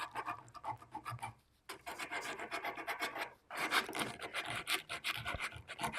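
Hand-sanding a wooden workpiece with abrasive paper: quick back-and-forth rubbing strokes, broken by two short pauses, about a second and a half in and about three and a half seconds in.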